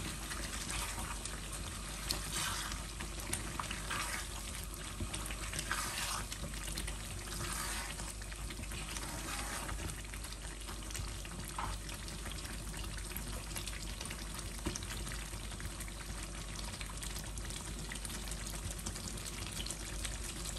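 Chicken biryani gravy sizzling steadily in a pan on the stove, with a few short louder moments in the first eight seconds or so.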